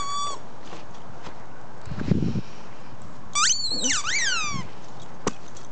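Dog whining and yelping in play: a brief high whine at the start, a short low sound about two seconds in, then a loud run of high yelping whines sliding up and down in pitch for just over a second. A single sharp click comes near the end.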